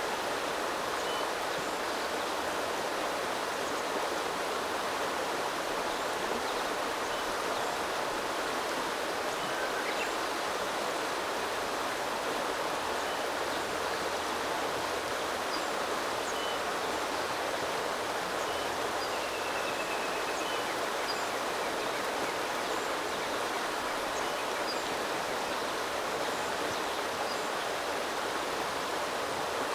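Small river flowing with a steady, even rush of water. Faint short bird calls come in here and there, with a brief trill about two-thirds of the way through.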